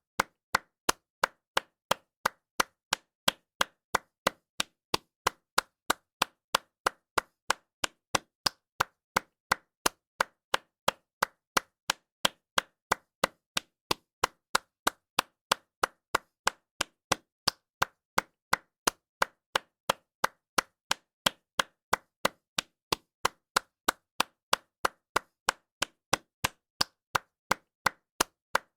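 A single person clapping their hands in a steady, even rhythm of about two to three sharp claps a second.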